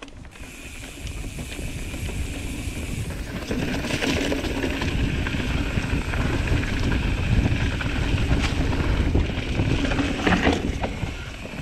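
Mountain bike rolling down a dirt singletrack, heard through wind buffeting the action camera's microphone, with tyre and frame rattle and a few sharp clacks over bumps. It gets louder over the first few seconds as the bike picks up speed.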